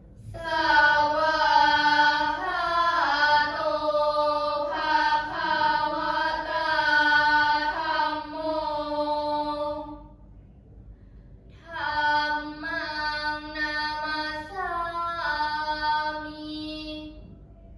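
A group of girls chanting Thai Buddhist prayers in unison to a melody, their voices gliding between held notes. The chant comes in two long phrases with a pause of about a second and a half between them.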